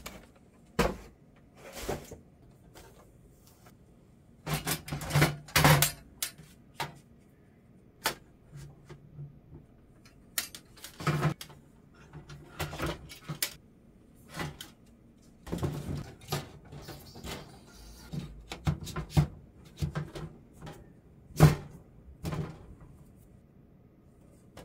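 Scattered clicks, knocks and light rattles of flat-pack parts being handled and fitted together while a mini greenhouse is being assembled, coming irregularly, some louder than others.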